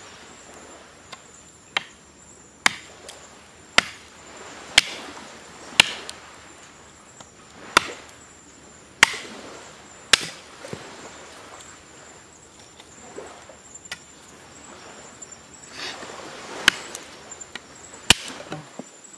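Chopping with a blade: about eight sharp strikes roughly a second apart, then a pause and two more strikes near the end.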